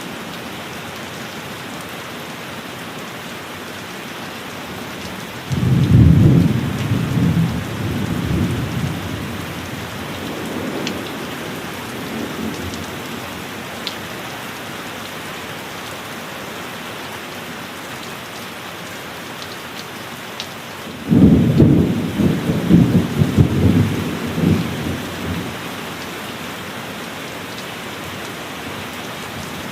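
Steady heavy rain with two sudden claps of thunder that roll on for a few seconds: one about six seconds in and a louder one about twenty-one seconds in.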